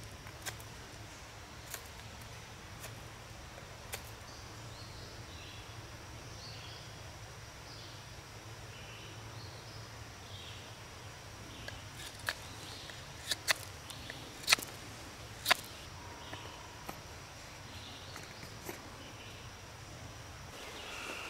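Woodland ambience with faint bird chirps, broken by about a dozen sharp clicks as a fixed-blade knife cuts into a wooden peg being whittled, most of them bunched in the middle of the stretch.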